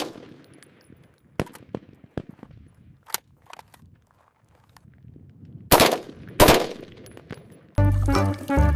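Scattered light clicks, then two short, loud bursts of noise about a second apart; cheerful music comes in near the end.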